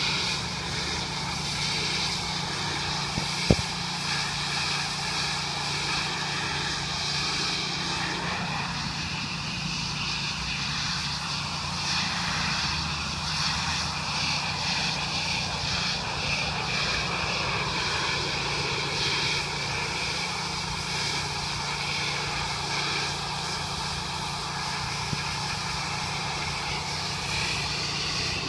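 Gas pressure washer's engine running steadily under a constant high hiss, with one sharp click about three and a half seconds in.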